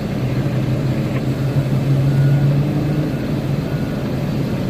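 Large mining diesel engines running, from the excavator and haul trucks at work. A steady low drone that swells briefly about two seconds in and then settles back.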